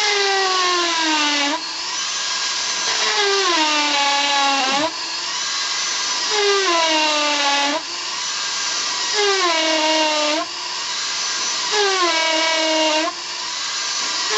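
Cordless hammer drill with a large masonry bit boring into a hard concrete step, run in repeated bursts of two to three seconds. Each burst starts with a high motor whine that drops in pitch as the bit bites, then stops briefly before the next.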